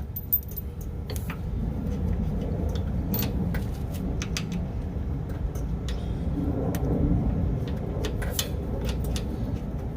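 Steady low engine-like rumble, with scattered light metallic clicks as a hand tool works on a sway bar bushing clamp.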